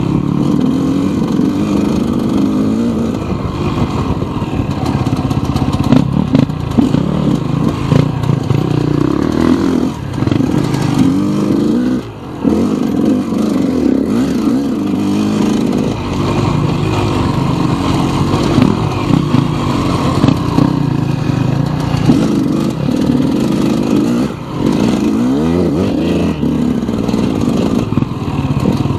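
KTM enduro dirt bike engine running hard under constantly changing throttle, its pitch rising and falling. It drops off briefly three times as the throttle is shut and then picks back up.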